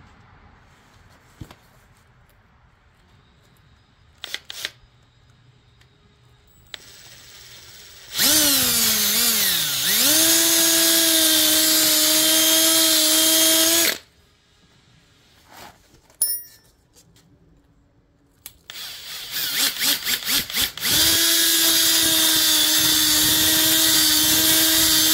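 Electric drill with a 3/8-inch bit boring holes through a half-inch rubber stall mat, in two runs of several seconds each. The first run dips in pitch before running steady. The second starts with a string of short trigger pulses, then runs steady.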